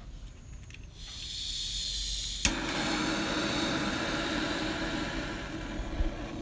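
Handheld kitchen gas torch: gas hissing from the nozzle from about a second in, a sharp click as the igniter fires, then the lit flame burning steadily, ready for caramelising sugar on the cakes. A light knock near the end.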